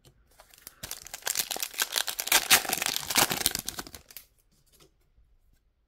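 Foil wrapper of an NBA Optic trading-card pack being torn open and crinkled for about three seconds, then a few faint ticks as the cards are handled.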